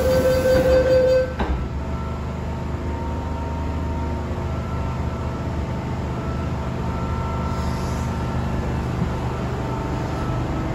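MTR M-train heard from inside the car: a loud steady whine from the traction equipment, which rail fans call the 鬼叫 (ghost howl), cuts off suddenly about a second in. After that the train's steady running rumble on the rails continues, with faint steady tones above it.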